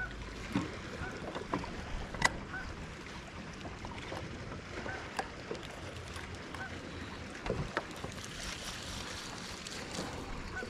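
Quiet lake ambience heard from a kayak: water lapping at the hull and light wind, with scattered small clicks and ticks.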